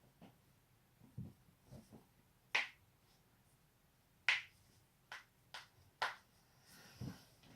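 A person's joints cracking: a string of about five short, sharp pops, the two loudest about two and a half and four and a quarter seconds in, the rest coming close together just after five seconds. Softer low thuds fall between them.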